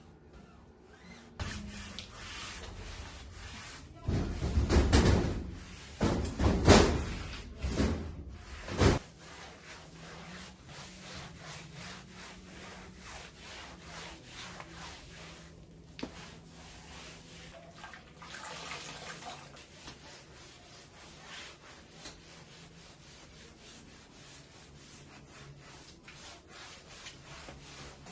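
Rubbing sounds: a handful of loud strokes a few seconds in, then a long stretch of softer rustling with light ticks.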